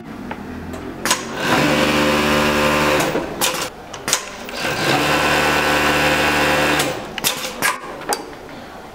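Juki MF-7523 industrial flatbed coverstitch machine sewing in two steady runs of about a second and a half each, the motor spinning up and stopping sharply, with short mechanical clicks and knocks between and after the runs as the fabric is repositioned under the presser foot.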